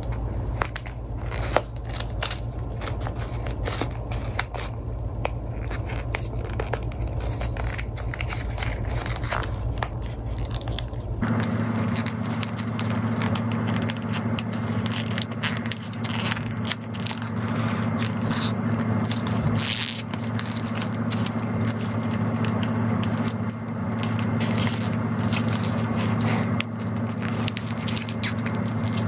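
Close handling noises: many small clicks, scrapes and crackles as hands work a small plastic object, over a steady low hum that changes abruptly about eleven seconds in.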